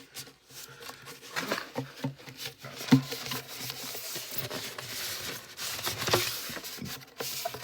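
Paper posters being handled and shuffled: rustling and rubbing with scattered light taps, and one sharper knock about three seconds in.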